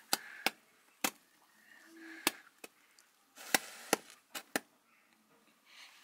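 Toy caps going off one at a time as a burning pile of matches sets them off: about nine sharp, irregular pops, the loudest a little over two seconds in and again past three and a half seconds.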